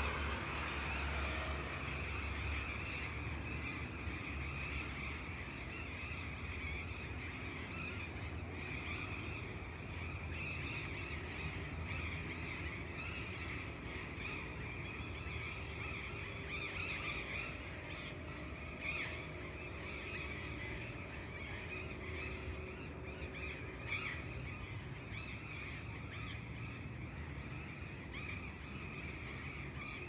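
Dawn chorus of many birds calling at once, with a few sharper chirps standing out. Under it runs a distant low traffic rumble, strongest in the first few seconds.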